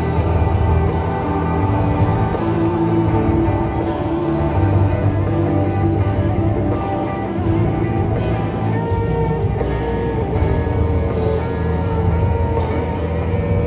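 Rock band playing live, with guitar prominent over a steady bass.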